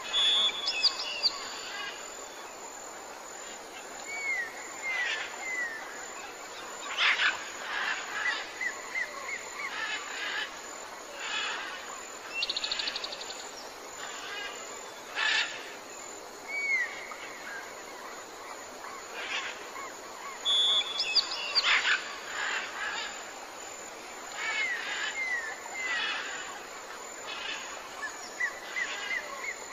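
Mixed wild birdsong: assorted chirps, short sliding whistles and rattling calls over a faint steady hiss, with the same run of calls coming round again after about twenty seconds.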